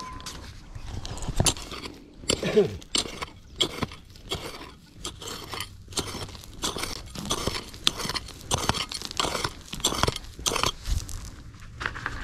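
Short-handled hand pick digging into stony, gravelly soil: irregular strikes and crunching scrapes of metal through dirt and pebbles.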